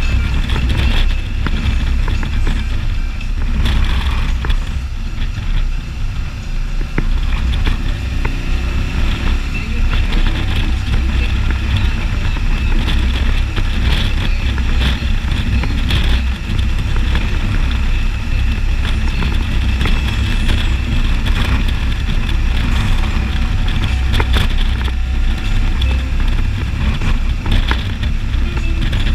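Can-Am Spyder ST Limited three-wheeled motorcycle being ridden at steady road speed: a continuous, steady rumble of engine and road noise, heaviest in the low end.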